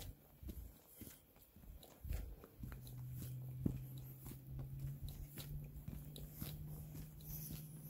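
Footsteps crunching on a dirt and gravel trail, irregular sharp crunches. A steady low hum comes in about a third of the way through.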